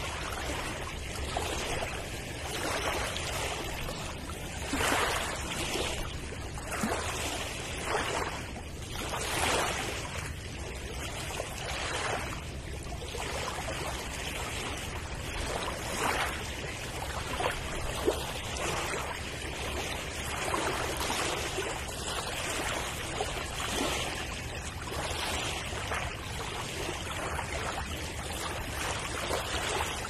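Sea surf washing over a rocky shore: a steady rush of water that swells and ebbs every second or two as the waves break and run among the rocks, with one sharp click a little past the middle.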